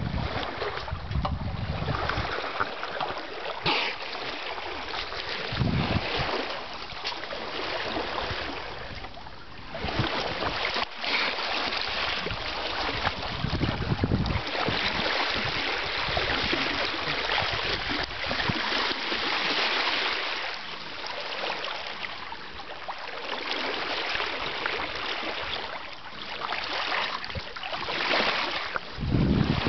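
Water rushing and splashing along a sailing yacht's hull at the bow, with gusts of wind buffeting the microphone now and then and a few handling knocks.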